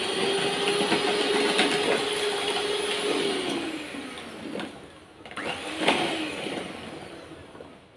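Electric hand mixer beating milk into creamed cake batter in a plastic tub. Its motor runs at a steady pitch, slows about three seconds in, spins up briefly twice around five and six seconds, then winds down near the end.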